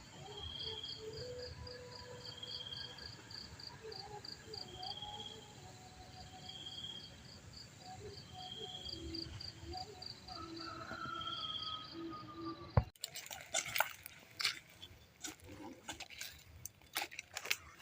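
Insects chirping in a fast, even pulse, with a short high note repeating about every two seconds. About two thirds of the way through, the sound cuts abruptly to a run of sharp clicks and rustles.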